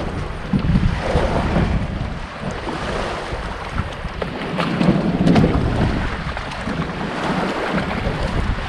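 Wind gusting and buffeting the microphone, with small waves lapping and splashing around a kayak.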